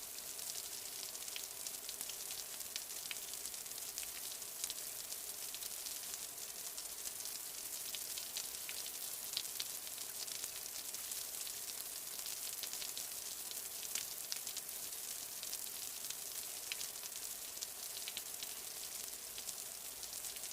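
Light rain falling steadily: a continuous soft hiss filled with fine, irregular patter of drops.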